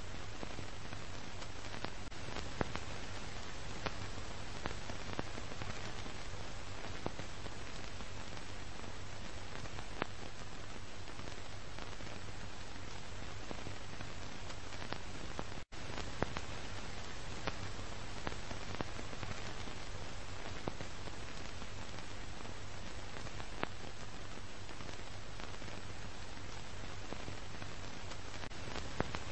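Steady static hiss with scattered clicks and pops over a low hum, the crackle of old film noise. It cuts out for an instant about halfway through.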